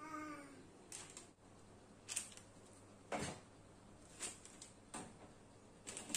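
Aluminium foil cups being set down one after another on a paper-lined baking tray: light knocks and crinkles about once a second, the loudest about three seconds in. A short falling tone sounds at the very start.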